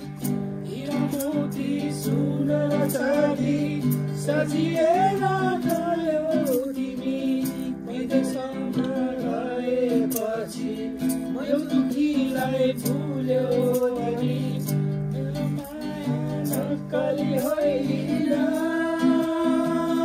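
Background music: a Nepali song with strummed acoustic guitar, a melody line and a steady beat.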